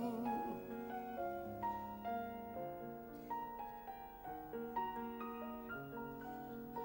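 A piano plays a gentle interlude between sung verses: a flowing melody of single notes over soft held chords.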